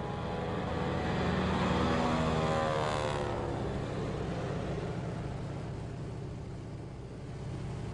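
A floatplane's propeller engine drones as it flies past, its pitch falling during the first few seconds, then settling into a steady drone as it moves away.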